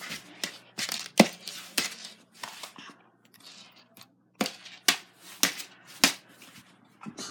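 A string of sharp taps and short rustles at irregular intervals, the strongest about a second in: handling noise from a phone being carried and moved about while filming.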